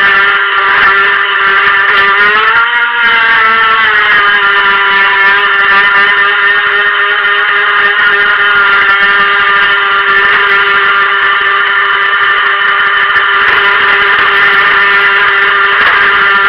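Helion Rivos RC boat's stock brushed electric motor running at speed: a loud, steady high whine. Its pitch rises briefly about two and a half seconds in, then settles back.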